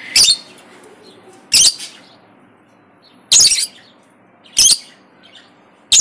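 Fischer's lovebirds in a cage giving five short, shrill calls, each a second or two apart.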